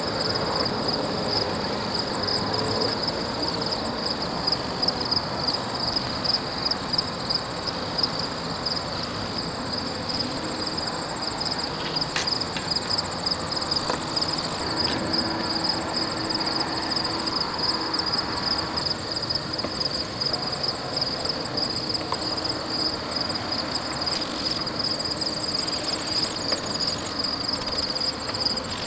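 Insects trilling in a steady high-pitched chorus, over constant low background noise.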